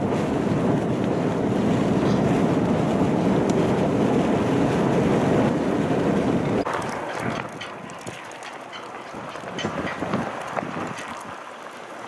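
Strong wind buffeting the microphone in a snowstorm: a loud, steady rumble. About two-thirds of the way through it cuts to a softer wind hiss with scattered light ticks.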